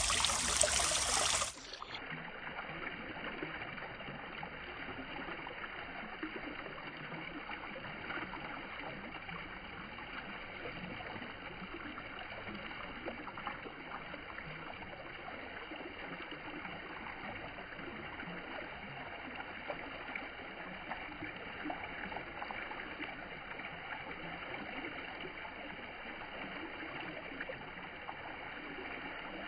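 Water spilling over the rim of a stone fountain basin into the pool below: a steady splashing trickle. After about a second and a half the sound turns duller and a little quieter, losing its high end, as the slow-motion audio starts.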